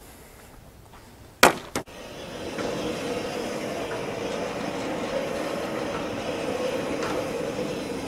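The head of a Woodland Mills HM-126 portable band sawmill is pushed by hand along its steel track, its carriage wheels rolling steadily on the rails from about two seconds in. A single sharp knock comes just before it starts to roll.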